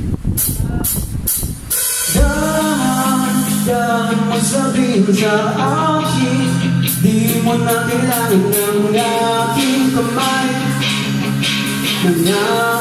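Live rock band playing: a run of drum hits in the first couple of seconds, then about two seconds in a sung vocal line comes in over electric guitars, bass guitar and drum kit.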